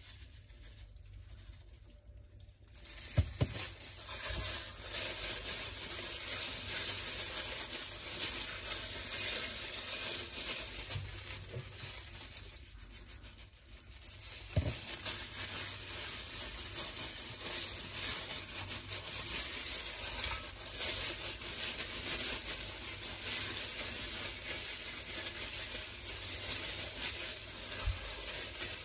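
Thin plastic disposable gloves crinkling and rustling as salt is shaken onto raw chicken breasts in a glass bowl and rubbed in by hand. A couple of sharp knocks come about three seconds in, then a steady crackly rustle with a short lull about halfway.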